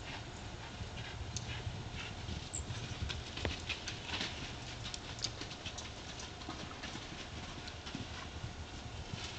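Hoofbeats of Gypsy Vanner horses galloping and cantering around a dirt paddock: a quick, irregular run of thuds and clicks. A steady low rumble of wind on the microphone lies beneath.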